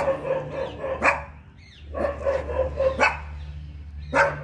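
Dog barking during play: about five sharp barks, roughly a second apart.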